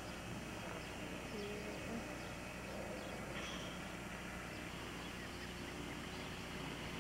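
Steady outdoor background noise of a home camcorder recording: a constant low hum under an even hiss, with a few faint, brief distant tones.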